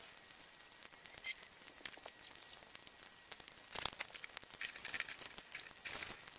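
Chicken patties frying in butter in a nonstick pan: a faint sizzle with scattered small crackles and pops.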